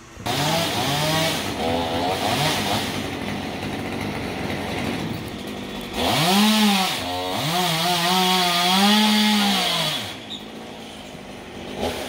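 Two-stroke chainsaw running at high revs as it cuts into a palm trunk, starting suddenly. Its pitch dips and climbs back up about halfway through, and again a little later, before it drops off near the end.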